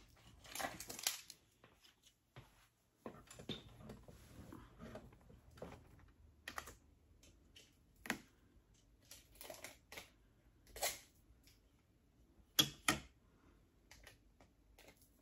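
Irregular light taps, clicks and rustling of small craft items being handled, with a few sharper clicks in the second half.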